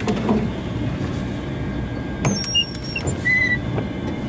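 A vehicle driving slowly along a forest trail: steady engine and running noise, with a few short high-pitched squeaks between two and three and a half seconds in.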